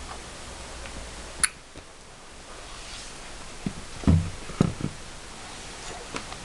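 A baby crawling on a wooden floor after an apple: one sharp click about a second and a half in, then a quick cluster of dull thumps around four seconds in as hands slap the floor and the apple is knocked along it.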